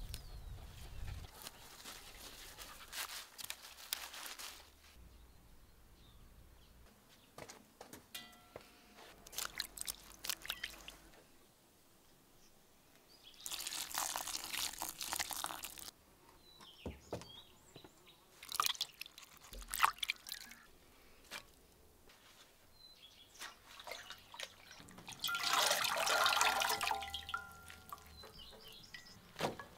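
Water poured over freshly picked nettles, splashing for a couple of seconds about halfway through. Near the end, washed sorrel leaves are handled over an enamel basin, with a longer run of splashing and dripping water. In between and before, there are quieter small clicks and rustles of leaves being handled.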